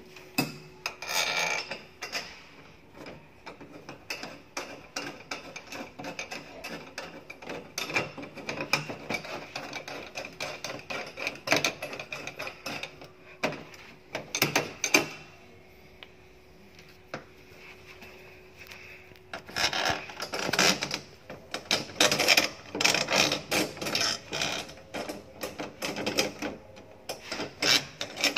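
Screws being tightened into the handle plate of a steel security door: irregular small metal clicks and scraping, busiest and loudest in the last third.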